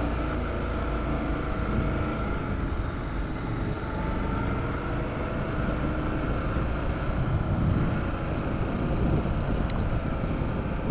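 Honda motorcycle engine running steadily under way at fairly even revs, with wind rumbling on the microphone.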